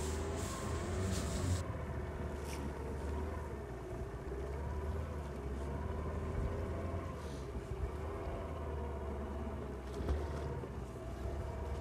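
Fishing boat's engine running steadily at low speed, the boat backing slowly in reverse while the net is let out, with a few faint knocks.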